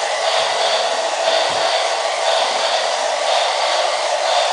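Battery-powered toy steam train running across a tile floor: a steady motor whir with a hiss that pulses about once a second.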